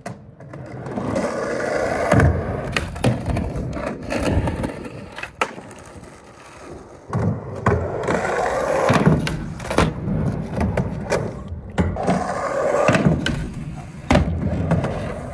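Skateboard wheels rolling over asphalt and concrete, the roll swelling and fading three times as the skater rides past. Sharp clacks of the board popping and landing are scattered through it.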